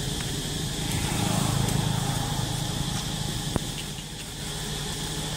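Low engine rumble of a motor vehicle, swelling about a second in and easing off again, with one sharp click about three and a half seconds in.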